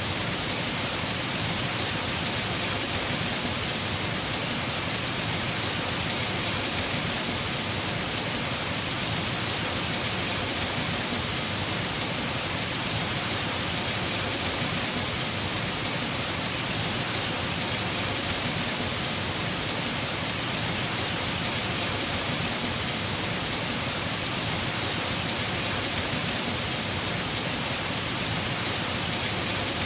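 Heavy rain falling on a house roof, a steady, even hiss of drops.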